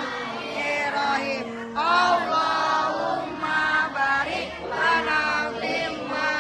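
Music with voices singing in a chant-like style.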